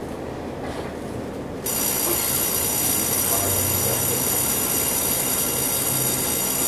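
Cabin of a Taiwan Railway EMU800 electric train standing still at a platform: a steady low hum, then about a second and a half in, a louder electrical buzz with a high whine switches on abruptly and holds steady.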